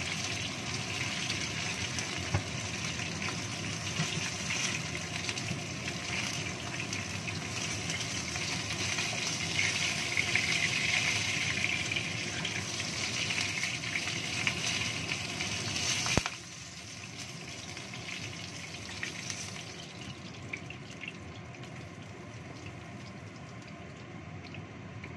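Pieces of shark frying in hot oil in a wok, a steady sizzle with light knocks as a wooden spatula turns them. About sixteen seconds in the sizzle drops abruptly after a sharp click, leaving a quieter hiss.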